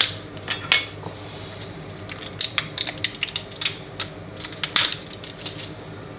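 Utensil and tub clinking and scraping against an empty stainless steel roasting tin while beef dripping is put into it: irregular sharp metallic clicks and taps in short clusters.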